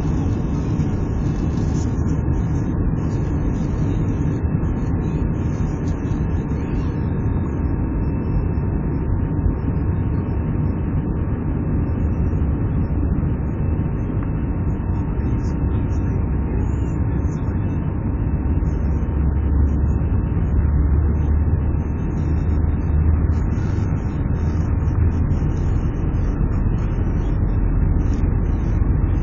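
Airbus airliner's jet engines at takeoff power, heard from inside the cabin over the wing, as a steady loud noise with a thin high tone running through it. A low rumble grows stronger in the second half as the plane accelerates down the runway.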